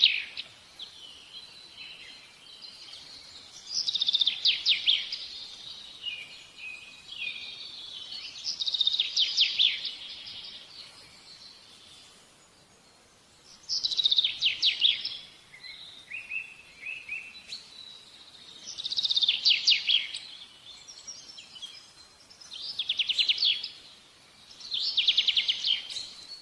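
A bird singing short, rapid trilled phrases, one every four to five seconds, with fainter chirps in between.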